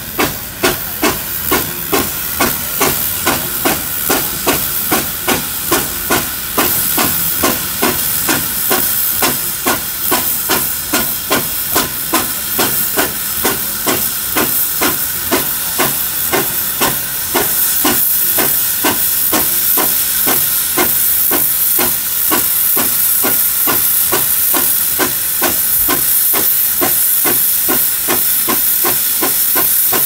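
Fowler steam ploughing engine working hard on its winch: the exhaust beats at about two a second over a loud hiss of steam and quickens. From just past halfway the beats run together into a steady hiss as the engine hauls the tractor-pulling sledge in by cable.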